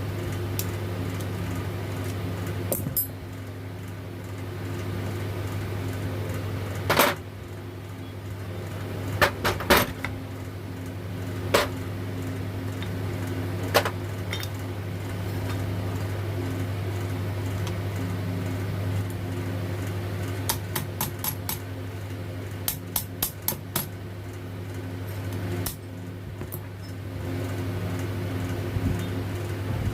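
Metal tools and starter-motor parts clinking and knocking against each other on a workbench: scattered sharp clicks, with two quick runs of four or five taps about two-thirds of the way through, over a steady low hum.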